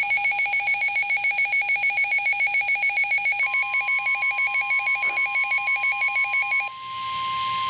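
Weather alert receiver's electronic alarm beeping in rapid pulses. About three and a half seconds in, the steady single-pitch NOAA Weather Radio warning alarm tone joins it. The beeping stops near the end while the steady alarm tone carries on, signalling that a warning message is about to be broadcast.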